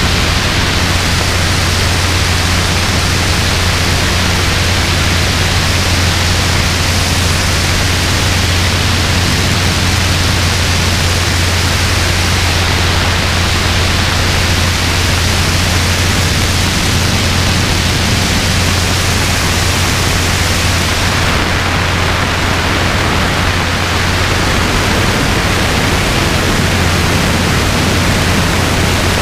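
Robinson R22 helicopter in cruise flight, heard from the open side of the cockpit: a steady, loud rush of wind over the microphone with a constant low drone from the piston engine and rotors underneath.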